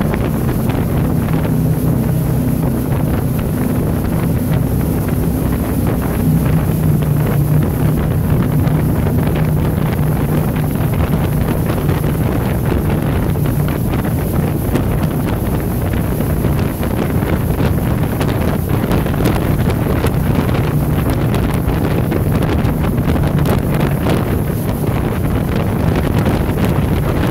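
Jet boat running at speed on a river: a steady engine drone under the rush of water spray, with heavy wind buffeting the microphone.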